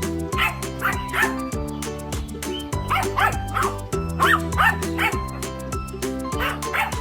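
Background music with a steady beat and held chords, with short high yelp-like calls in twos and threes woven in and repeating every second or two.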